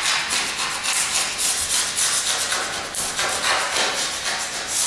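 Quick, repeated scraping strokes of a plastic scraper on a laminate floor along the skirting board, scraping off dried paint left from painting the skirting boards.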